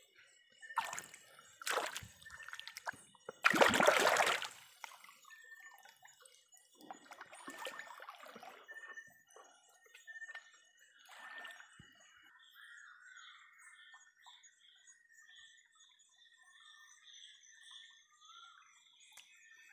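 Shallow river water splashing and sloshing as hands grope through it for shrimp, in several bursts with the loudest splash about four seconds in. It is quieter after about twelve seconds. Steady high-pitched chirping runs in the background, with a regular chirp about twice a second in the second half.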